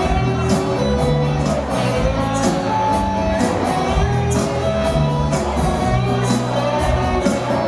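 Live rock band playing an upbeat rock-and-roll number, with drums, bass and electric guitars over a steady beat.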